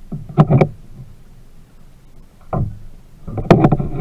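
Kayak paddle strokes: three bursts of splashing and knocks on the kayak's hull, about a second or so apart, the last the longest.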